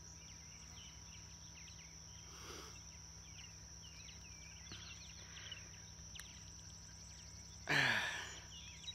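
Quiet lakeside ambience: faint small birds chirping over a steady high insect hum, with a short louder breathy noise about eight seconds in.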